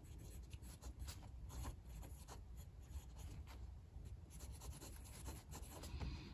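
Fountain pen nib scratching faintly across thin Tomoe River paper while words are handwritten, in a string of short irregular strokes.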